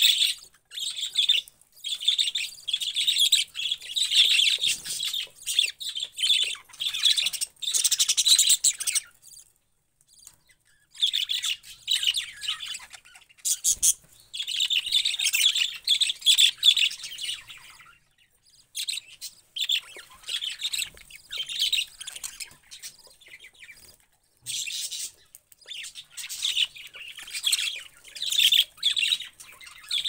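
A group of budgerigars chirping and chattering: a busy, high-pitched warble in long bursts, with a few short lulls along the way.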